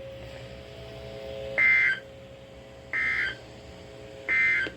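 Emergency Alert System end-of-message tones: three short bursts of harsh digital data screech, evenly spaced about 1.3 seconds apart, signalling the end of the warning message. A faint steady hum sits between the bursts.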